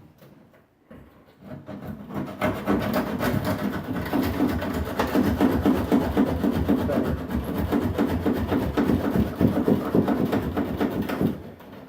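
A hand saw cutting with rapid back-and-forth rasping strokes, starting about a second and a half in and stopping shortly before the end.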